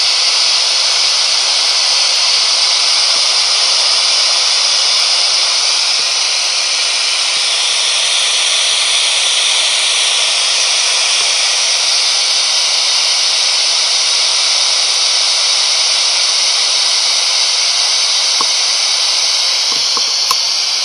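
Steady radio static from a handheld spirit box radio scanner sweeping the radio frequencies, with no voices coming through. A few faint clicks near the end.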